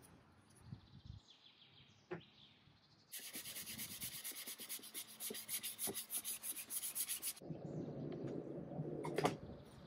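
A sponge rubbed quickly back and forth over clamped, freshly glued pine boards, making an even scrubbing rhythm for about four seconds. After that come lower rustles and a click as the bar clamps are handled.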